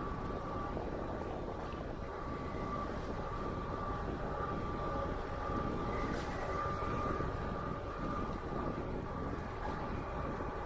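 Wind rushing over the microphone and tyre noise as a bicycle rolls along a paved path, with a steady high whine.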